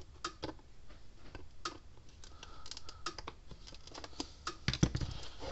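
A flathead screwdriver prying at the seam of a Red Snap'r fence energizer's plastic case: irregular small clicks and scrapes of plastic, with a louder cluster of knocks near the end.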